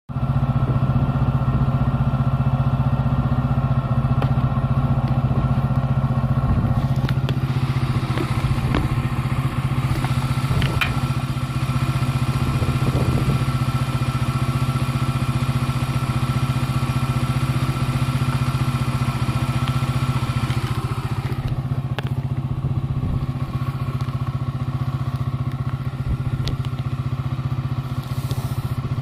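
Motorcycle engine running at a steady pitch, with a hiss over it that drops away about three quarters of the way through.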